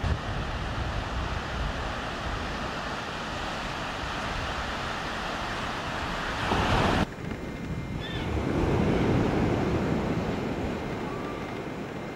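Waves breaking on a sandy beach, a steady rush mixed with wind on the microphone. It stops abruptly about seven seconds in, and a softer rush swells and fades after it.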